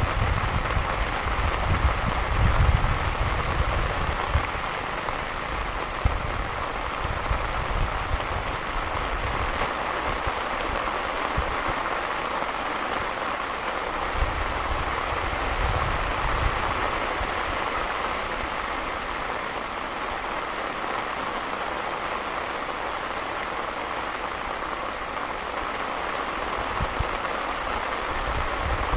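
Heavy rain falling steadily, a dense even hiss of drops on a surface. Low rumbles come and go over it, strongest in the first few seconds and again briefly midway and near the end.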